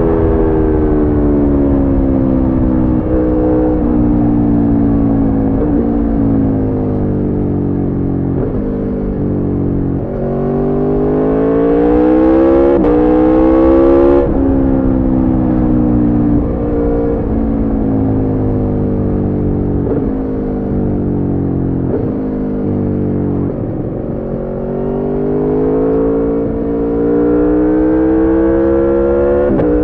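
Aprilia Tuono V4 engine through an Arrow slip-on exhaust with the catalytic converter removed, ridden on the road. It slows with the revs falling and jumping up at each downshift, pulls hard with rising revs about ten seconds in, slows again through more downshifts, and accelerates again near the end.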